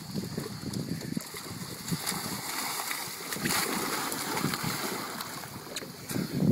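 Sea water splashing and sloshing as a rider comes off an Aquaskipper human-powered hydrofoil into the water, with a louder burst of splashing a little past halfway.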